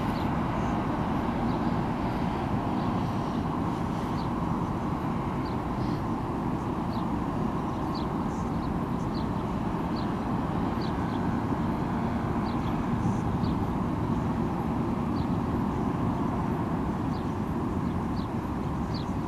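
Steady low outdoor rumble, with short high bird chirps about once or twice a second.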